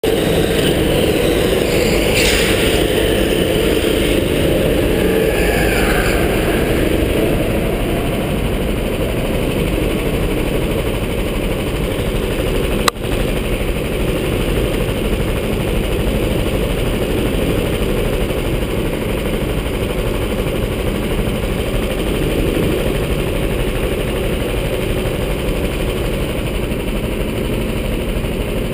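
Go-kart engine running hard, heard close up from the driver's seat, with a single sharp crack about thirteen seconds in.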